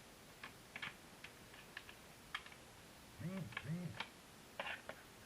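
Scattered light clicks and taps of plastic being handled as a phone is fitted into the clamps of a View-Master VR viewer, with two short hummed vocal sounds a little past halfway.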